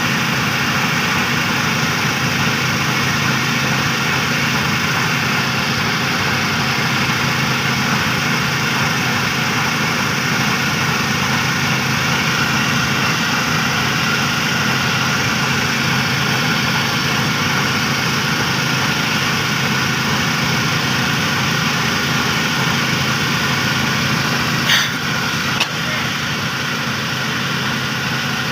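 Engine-driven rice threshing machine running steadily, with two sharp knocks near the end.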